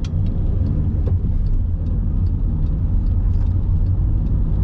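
Steady low road and engine rumble heard inside a moving car's cabin, with faint short ticks repeating about three times a second.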